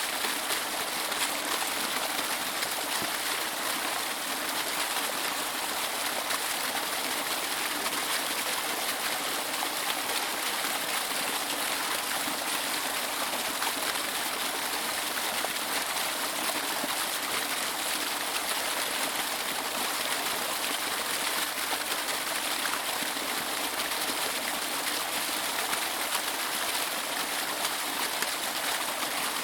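Waterfall: water rushing and splashing in a steady, even hiss with no breaks.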